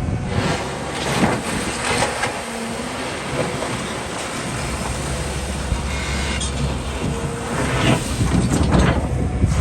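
Doosan DX300LC crawler excavator working: its diesel engine runs under load, with the low drone strengthening about halfway through, and metallic clanks and knocks at intervals.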